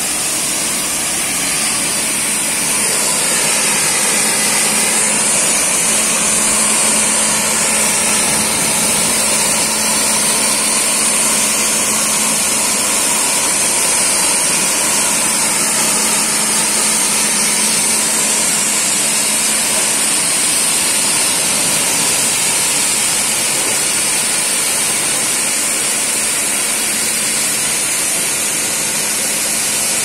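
Ergin ER 4200 automatic carpet washing machine running, its 80–120 bar rinse jets spraying water onto a rug on the conveyor with a steady hiss over a steady motor hum.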